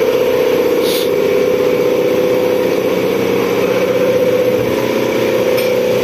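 Steady, loud hum of running machinery, a constant mid-pitched drone from the ride's motor equipment, with a light click about a second in.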